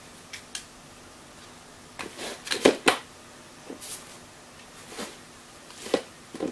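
Staffordshire bull terrier searching by scent among upturned plastic flowerpots: short sniffs and light taps and knocks of nose, pots and paws on the tiled floor, loudest in a cluster between about two and three seconds in.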